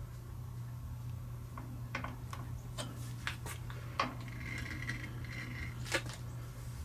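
Light metal clicks and clinks, several scattered through, from a workpiece being dialled in by hand in a lathe's four-jaw chuck, over a steady low hum.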